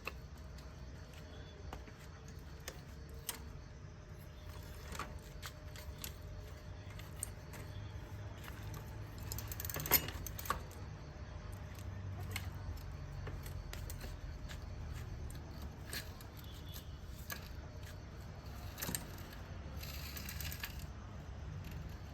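Scattered light metallic clicks and clinks as a new bicycle freewheel is screwed onto the rear hub by hand and the parts are handled, over a steady low hum. The loudest clink comes about ten seconds in.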